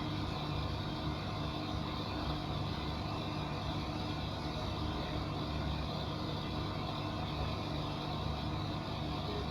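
Epson SureColor T5270 large-format printer running while it prints, a steady mechanical hum with a low rumble underneath.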